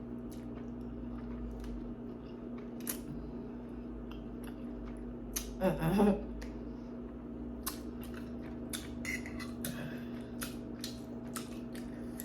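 Eating sounds: scattered small clicks and smacks of chewing and a utensil, over a steady electrical hum. A brief louder sound comes about halfway through.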